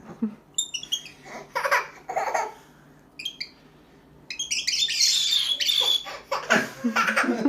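A baby laughing and squealing in bursts, with a pet cockatiel giving short high chirps between them.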